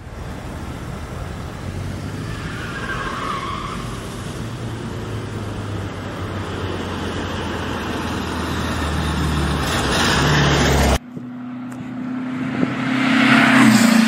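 VW Beetle driving along a road, its air-cooled flat-four engine and tyres growing louder as it comes closer. The sound cuts off abruptly about eleven seconds in, and a second engine sound with a steady hum builds up again near the end.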